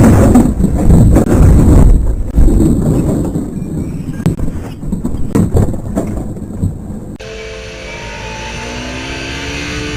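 Motorcycle colliding with a car, heard through the rider's on-board camera microphone: loud, jumbled crash and scraping noise for a few seconds, then scattered knocks. About seven seconds in, the sound changes abruptly to a quieter, steadier one with held tones.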